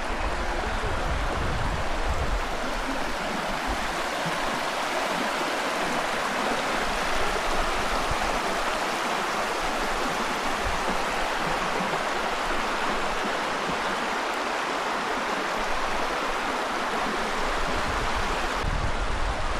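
River water rushing steadily down over the smooth rock face of a natural rock slide, with a low uneven rumble underneath.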